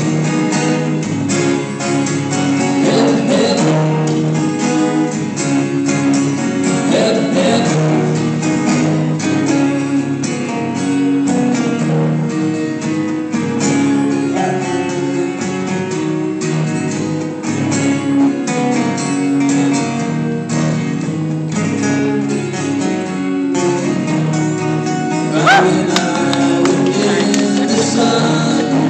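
Two acoustic guitars strummed together in a steady rhythm, with a man singing into a microphone.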